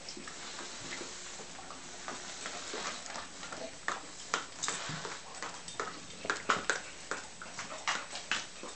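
Weimaraners licking and smacking at whipped cream: a run of quick wet clicks and smacks that grows busier and louder from about four seconds in.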